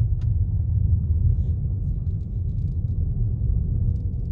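Steady low rumble of a car driving on a dirt road, with a few faint ticks and rattles above it.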